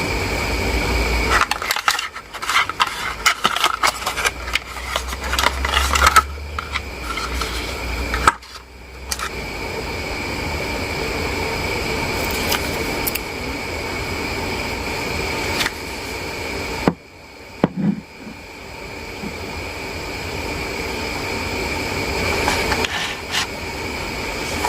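A quick run of small clicks and taps from hard objects being handled, busiest in the first third, over a steady background hum with a faint high tone.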